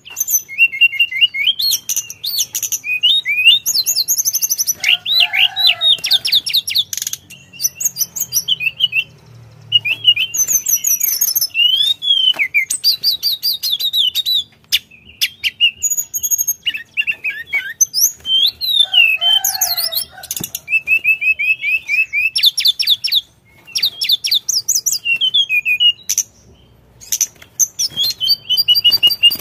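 A male hill blue flycatcher (tledekan gunung) singing continuously: a long, varied song of quick high twittering trills and sweeping whistled notes, in rapid phrases separated by short pauses.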